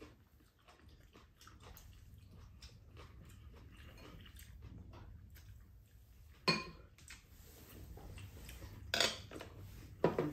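Chopsticks and spoons tapping and scraping against ceramic bowls during a meal, small clicks over a faint steady low hum, with three sharper clinks about six and a half, nine and ten seconds in.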